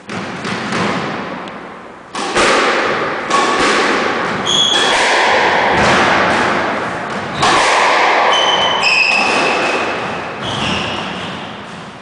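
Squash rally: the ball is struck by rackets and smacks the walls, with sneakers squeaking on the wooden court floor. The impacts echo in the enclosed court.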